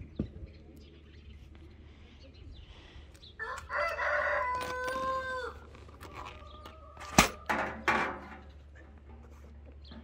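A rooster crowing once, a drawn-out call held for about two seconds and dropping at the end. Soon after comes a sharp knock, the loudest sound here, and then two more knocks.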